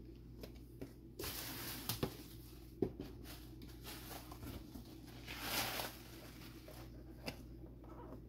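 Boxed vinyl figures and a cardboard shipping box being handled: two spells of rustling and scraping of cardboard and plastic packaging, with a few sharp taps, the loudest a little under three seconds in.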